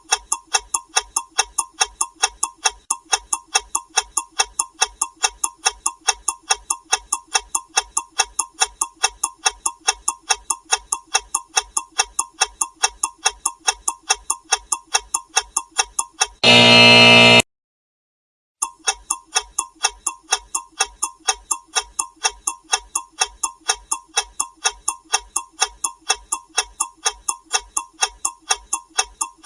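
Ticking alarm: quick, steady ticking, broken about two-thirds of the way through by a loud buzzer lasting about a second. A second of silence follows, then the ticking starts again.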